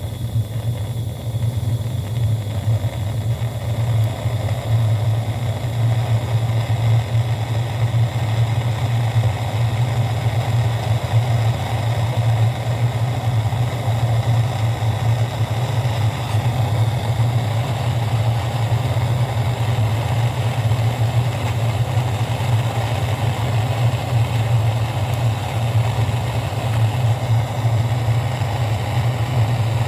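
A motor-driven machine running steadily with a strong low hum.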